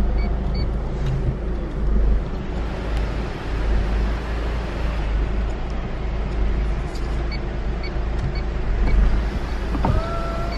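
Steady low rumble inside a car that has just been parked, with faint regular ticking. About ten seconds in, a steady electronic warning chime starts.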